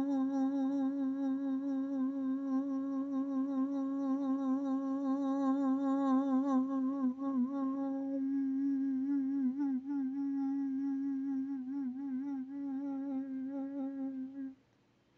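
A person humming one long sustained low note, its pitch wavering slightly, until it stops suddenly near the end.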